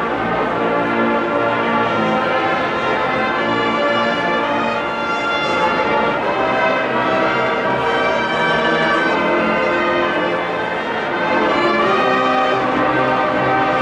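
Marching band playing, brass to the fore.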